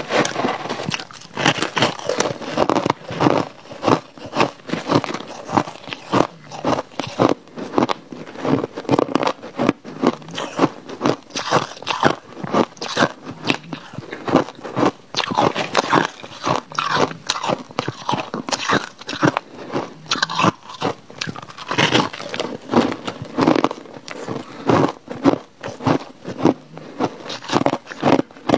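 A person biting and chewing crushed ice close to the microphone: a continuous run of sharp, loud crunches, several a second.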